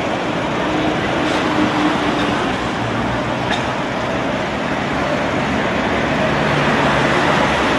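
Steady street traffic noise from a tram route: a Hong Kong electric tram and road vehicles running along the street.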